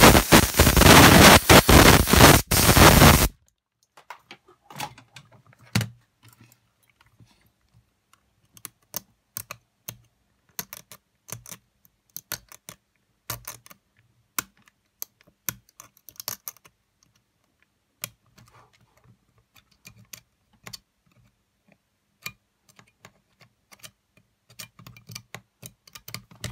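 A small handheld electric tool runs with a loud hiss for about three seconds as it clears scraped battery-contact corrosion from a cassette Walkman, then cuts off suddenly. After that come scattered light clicks and taps of metal tweezers on the player's circuit board and metal chassis.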